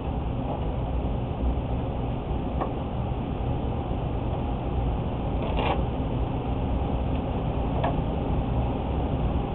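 Steady low rumbling background noise with a few faint, light clicks, one a little under three seconds in, one about halfway and one near the end.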